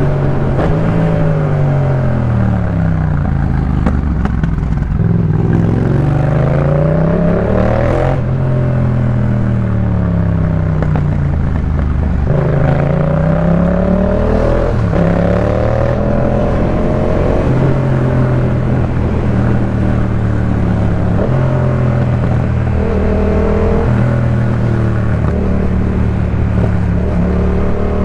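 Yamaha MT-07's 689 cc parallel-twin engine through a Jeskap K4 full aftermarket exhaust, heard while riding. The engine note repeatedly rises and falls as the rider opens and closes the throttle through the gears, then holds steadier with stepwise pitch changes in the second half.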